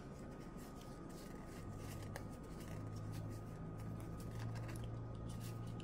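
Trading cards being handled and counted by hand: faint repeated flicks and slides of cards. A low steady hum sets in about a second and a half in.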